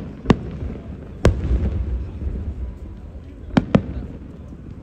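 Aerial firework shells bursting: five sharp bangs, a pair at the start, the loudest about a second in followed by a low rumble, and a quick pair near the end.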